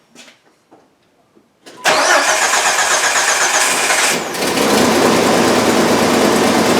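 Jeep Wrangler's newly installed starter cranks the engine for about two seconds until it catches, then the engine settles into a steady idle. The new starter works. A few light clicks come before the cranking.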